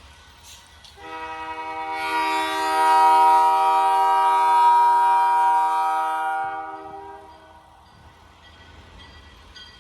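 Locomotive air horn sounding one long chord-like blast of several steady tones for about six seconds, from a Buffalo Southern Railroad train approaching a grade crossing.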